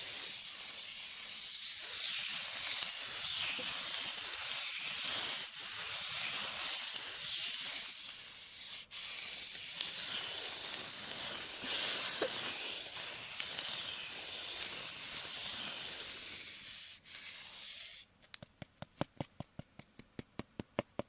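Close-miked ASMR ear-cleaning sounds: a steady scratchy, hissing rub on the microphone that cuts out briefly twice. About three seconds before the end it changes to fast, even tapping, several taps a second.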